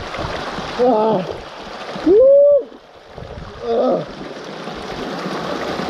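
Small waterfall pouring into a rock pool, a steady rush of water, broken three times by a bather's wordless cries in the cold water. The loudest is a long held cry near the middle.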